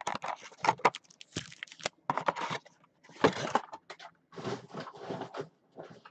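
Cardboard trading-card hobby box being opened and handled: a series of short, noisy scrapes and rustles in irregular bursts.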